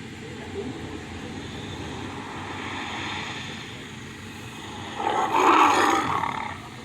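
MGM lion roar sound effect: a low growl that swells and fades, then one loud roar about five seconds in, lasting about a second and a half.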